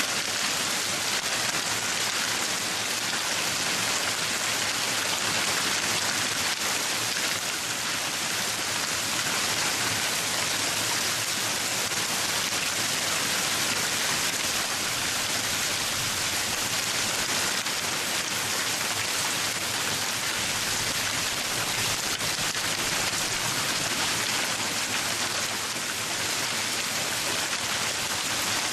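Hail falling: a dense, steady hiss of countless small hailstones striking the ground.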